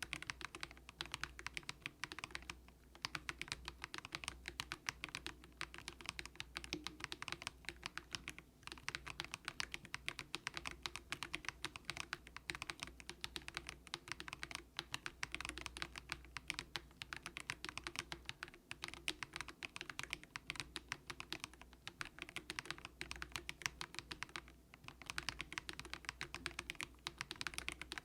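Continuous fast typing on the Monstar Gear NINJA87, a plastic-cased mechanical keyboard with light, low-force Haimu Sea Salt switches. There are short pauses about 3, 8 and 24 seconds in.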